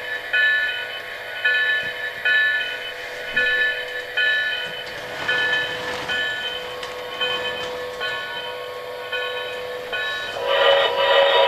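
O gauge model train's onboard sound unit ringing its locomotive bell in short repeated strokes over the hum of the running train, then a louder horn blast about ten seconds in.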